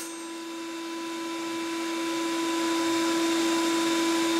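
Table saw with a metal-cutting blade running with a steady whine, growing louder over the first few seconds and then holding steady.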